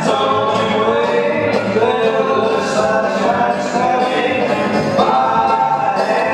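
Dance music with several voices singing over a steady beat, playing for a folk mixer dance.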